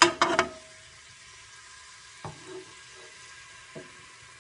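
Sliced onions tipped from a plate into hot oil in an aluminium pressure cooker: a quick run of sharp clatters of the plate against the pot at the start, then the onions sizzling steadily as they fry, with two light knocks later.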